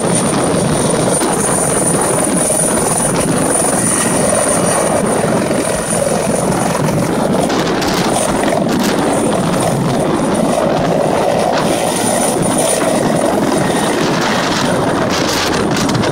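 Turbine rescue helicopter hovering low and lifting away: a loud, steady rotor wash with a thin, high turbine whine held over it.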